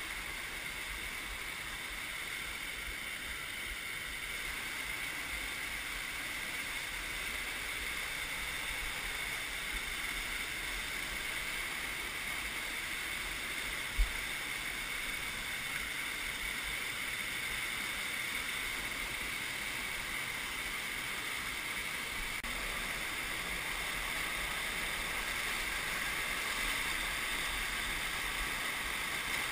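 River rapids rushing over and between rock boulders: a steady noise of churning whitewater, with a single short thump about halfway through.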